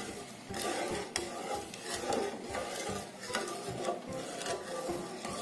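Wooden spatula stirring and scraping through coconut milk with pandan leaves in a pan on the stove, with a few sharp knocks of the spatula against the pan. The milk is kept stirring as it cooks so that it does not split.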